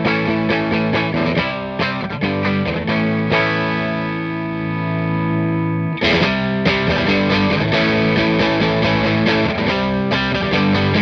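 Electric guitar played through a vintage-style combo amp simulation (Safari Pedals Silver Llama plugin) with the gain pushed up for a light overdrive. Picked notes and chords, with one chord left ringing for a couple of seconds midway before the playing picks up again.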